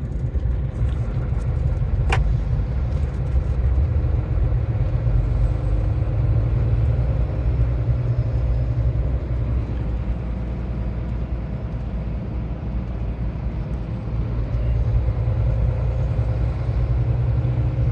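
Iveco Stralis truck's diesel engine and road noise heard from inside the cab while driving: a steady low rumble, with a single sharp click about two seconds in.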